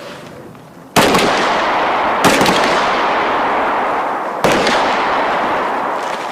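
Small-arms gunfire on a firing range: three sharp shots, about a second in, then about a second later, then about two seconds after that, each followed by a long rolling echo that keeps the sound loud between them.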